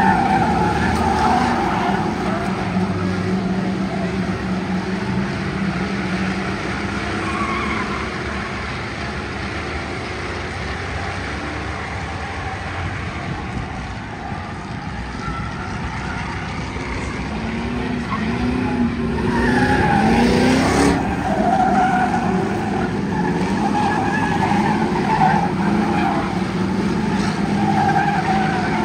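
Several Ford Crown Victoria race cars running their V8 engines around an oval, with tyres skidding through the turns. The sound swells about two-thirds of the way in as cars come close, with one engine revving up.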